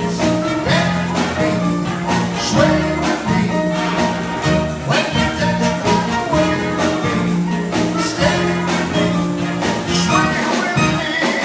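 A big band playing live dance music, with brass and saxophones over bass guitar and drums keeping a steady beat.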